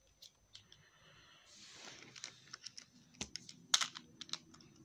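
Plastic wrestling action figures handled and knocked together: scattered light clicks and taps with a soft rustle, and a cluster of sharper clacks in the last second and a half.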